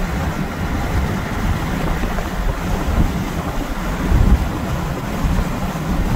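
Steady rush of wind and road noise from a moving vehicle, with wind buffeting the microphone and a stronger low gust about four seconds in.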